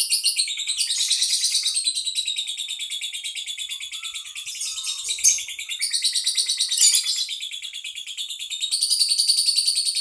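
Caged songbird singing a continuous, fast, chattering song of rapid repeated high notes without a pause, with a few sharper, louder notes mixed in partway through.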